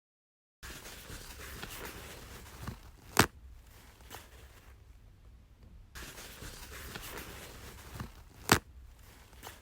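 Toilet paper pulled off the roll with a rustle for about two seconds, then torn off with one sharp rip. The same happens twice: the second pull starts about six seconds in.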